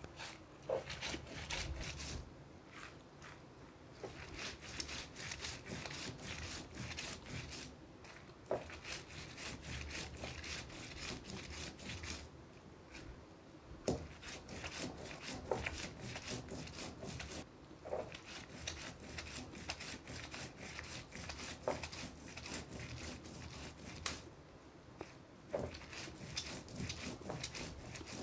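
Stone roller worked back and forth on a flat grinding stone, crushing dried red chillies moistened with a little water: a steady run of gritty scraping and crunching with a sharper knock now and then.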